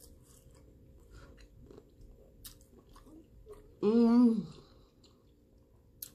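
Close-up chewing of a garlic shrimp dipped in alfredo sauce: soft, wet mouth clicks and smacks. About four seconds in comes a short hummed "mmm" through closed lips, the loudest sound, rising and then falling in pitch.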